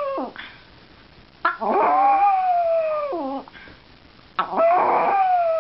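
Pomeranian howling: the end of one howl, then two long howls about a second apart, each starting sharply and sliding slowly down in pitch.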